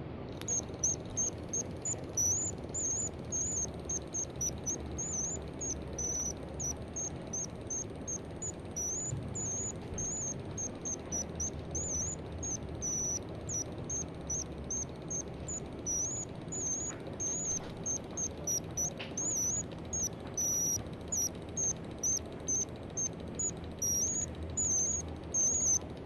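Jaquet Droz Charming Bird singing-bird automaton watch singing through its miniature whistle system: a continuous run of high, quick chirps and warbles, several a second, starting about half a second in.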